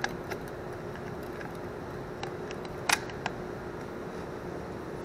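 A few light clicks and taps of a plastic engine air filter housing being handled and fitted, the sharpest about three seconds in, over a steady background hum.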